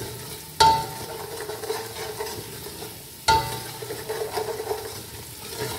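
Onion-tomato masala frying and sizzling in oil in a steel pot as it is stirred with a wooden spoon. The spoon knocks against the pot twice, a few seconds apart, each knock with a short ring.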